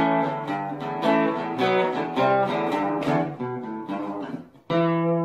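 Acoustic guitar music: a run of picked and strummed notes, then a final chord struck near the end and left ringing.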